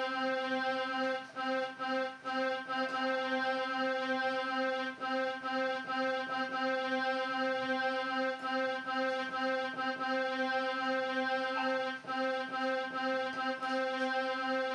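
Portable electronic keyboard played by hand: notes played over one low note held steady and unbroken.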